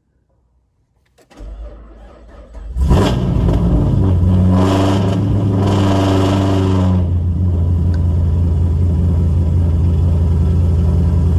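2009 Pontiac G8 GT's 6.0-litre V8 cold-started after sitting two days: the starter cranks briefly about a second in, the engine catches at about three seconds, then runs at a steady fast cold idle near 1,400 rpm.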